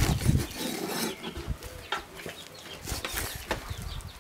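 Kitchen knife slicing raw pig lung on a thick wooden chopping block: irregular soft knocks of the blade meeting the wood, a couple a second.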